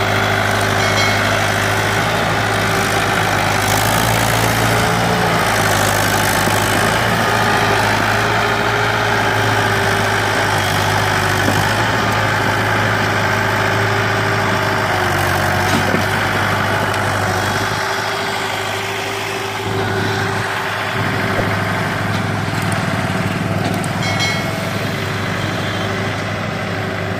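Mahindra 575 DI tractor's four-cylinder diesel engine running steadily under load, pulling a heavily loaded sugarcane trolley. It gets a little quieter past the middle.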